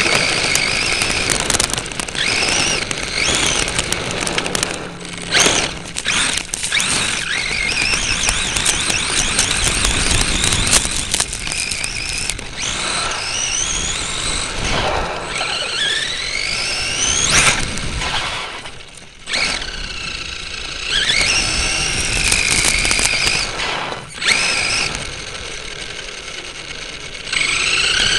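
RC truck's electric motor and gears whining, rising and falling in pitch again and again as it speeds up and slows down, over the rough noise of its tyres on gravel. The whine drops away briefly about two-thirds of the way through.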